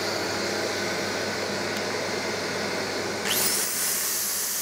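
Workshop dust extractor running steadily with a low hum and airy hiss. About three seconds in, a handheld rotary power sander starts up with a quickly rising whine and keeps running, ready for sanding the turned piece.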